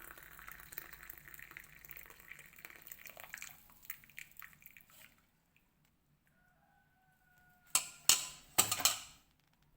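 Boiled mango-leaf water being strained and poured into a glass, running and dripping faintly for about five seconds. Near the end come three loud, sudden knocks.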